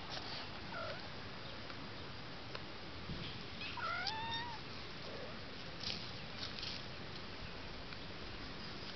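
A cat meows once, a short call rising then falling in pitch, about four seconds in. A fainter, shorter call comes about a second in.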